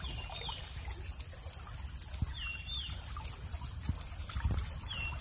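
Water trickling and dripping from a woven bamboo fish trap lifted out of shallow water. A bird's short whistled call, dipping then rising, sounds three times about two and a half seconds apart, over a steady high tone.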